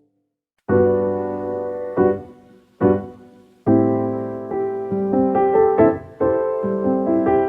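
Slow piano music: soft chords struck one after another and left to ring and fade, starting after a brief moment of silence.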